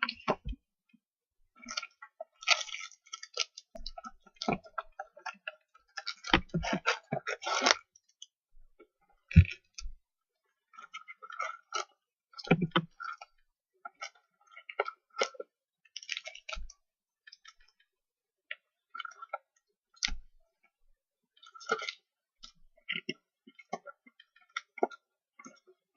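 Hands opening a cardboard box of basketball trading-card packs and handling the wrapped packs: irregular crinkling, rustling, taps and clicks.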